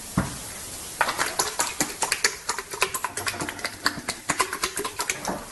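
Rapid, irregular clicking and clattering, several sharp clicks a second, starting about a second in.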